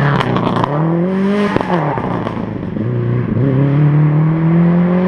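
Rally car accelerating hard past and away, its engine note climbing, dropping sharply twice at upshifts and climbing again. A quick run of sharp clicks comes as it goes by.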